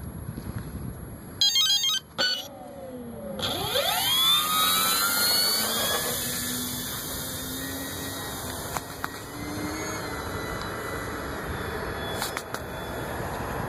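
AXI 2826/10 brushless outrunner motor and propeller of an electric RC plane throttling up for takeoff: a whine that rises steeply in pitch over about two seconds, then holds a steady high buzz as the plane climbs away. A brief loud burst comes just before the motor spools up.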